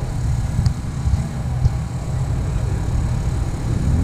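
Car engine running at idle close by, a continuous low rumble, with two faint ticks in the first two seconds.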